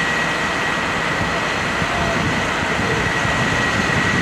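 Fire truck engine running steadily, with a constant high-pitched whine on top.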